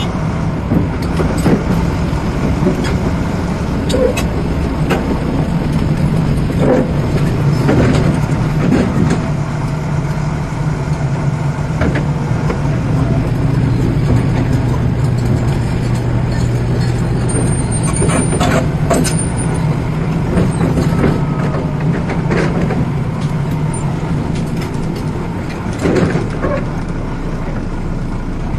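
Heavy diesel construction machinery running steadily under load, with scattered sharp metallic knocks and clanks.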